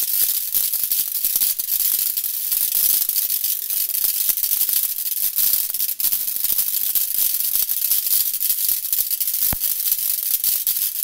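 Homemade rotary spark gap firing: electric arcs jump across the copper contacts of a perspex disc spun by a PC fan, a steady, dense fast crackle.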